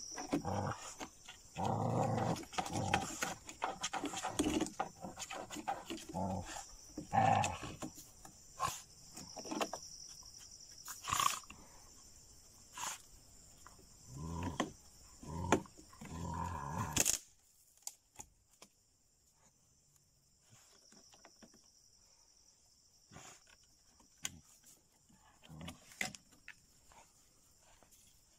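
Dogs barking and growling at a cat in a fight, in repeated loud bursts, with a cat's snarling mixed in; the fighting stops abruptly about 17 seconds in. A steady high-pitched drone runs underneath throughout.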